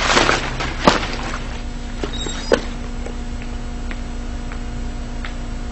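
A low steady hum, with a sharp click about a second in, another about two and a half seconds in, and a few faint ticks after.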